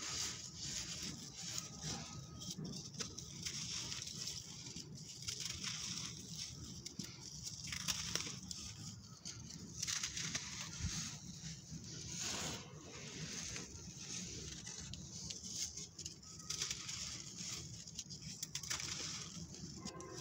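Dry sand and crumbly sand-cement clumps being handled by hand: sand pouring and trickling through fingers and clumps crumbling, a gritty hiss that swells and fades every few seconds with small crunches between.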